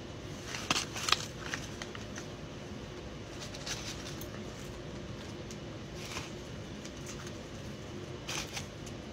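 Close-up eating sounds of someone chewing fast-food fries: a few short, crisp mouth smacks and chews, the loudest a little under a second in, with more now and then. A steady hum runs underneath.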